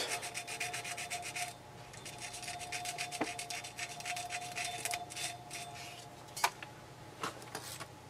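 Finishing sandpaper rubbed quickly back and forth on a picture tube's thin copper lead wires, scouring off black oxidation to get them bright. The rapid scratchy strokes are strongest at first, then lighter, with a few light ticks near the end.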